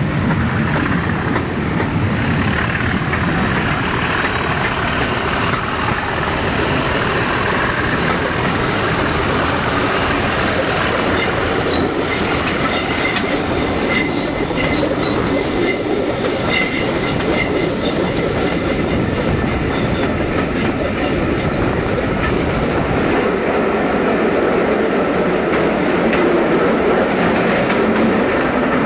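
Loco-hauled passenger train heard from inside a coach: a steady rumble and clickety-clack of the wheels on the track, with a faint high squeal from the wheels coming and going around the middle.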